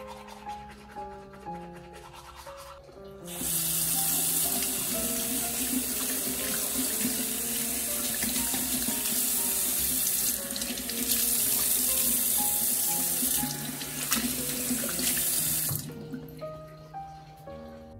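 Water running hard from a tap into a sink, starting about three seconds in and shutting off near the end, over soft piano music.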